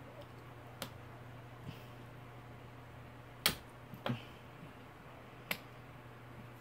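About five sharp, scattered clicks and taps of small tools and plastic parts being handled while a DJI Spark drone's frame is taken apart, the loudest about three and a half seconds in, over a steady low hum.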